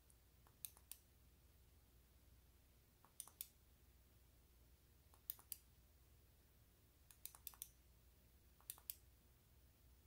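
Copper Lumintop FW21 X9L flashlight's switch clicking faintly in quick double clicks, about six pairs a second or two apart, each double click changing its blinking mode.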